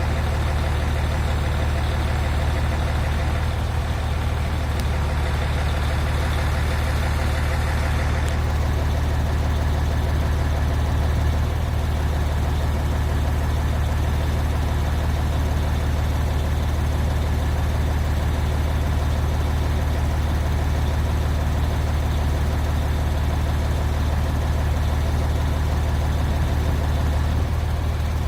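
Heavy engine idling steadily with a deep, even hum. A higher hiss above it stops about eight seconds in.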